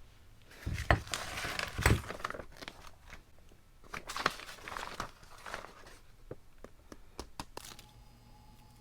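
Handling noise: rustling and crinkling in two stretches, with a few light clicks and knocks scattered between.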